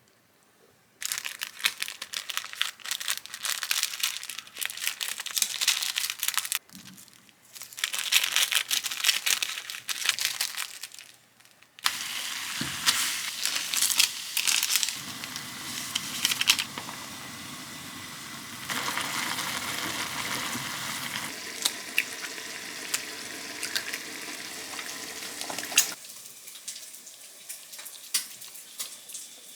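Food sizzling and crackling in a hot pan, in a few separate stretches, with a longer steady sizzle through the middle that fades off near the end.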